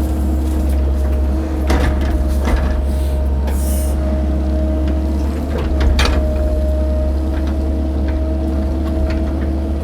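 Cat 308 mini excavator's diesel engine running steadily under working load, with a steady whine over the drone. Sharp knocks come about two seconds in, again shortly after, and once more around six seconds in.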